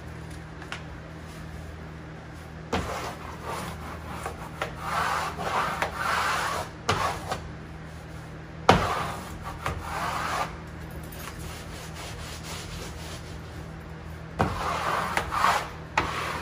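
A plastic wallpaper smoother rubs and scrapes over cork wallcovering in three spells of strokes, pressing the freshly hung cork flat to the wall. There is one sharp knock near the middle.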